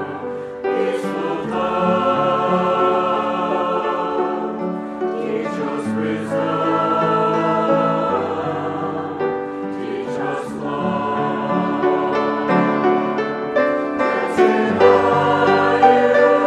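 Choir singing a slow Marian hymn in long held phrases, with short breaks between phrases every four to five seconds.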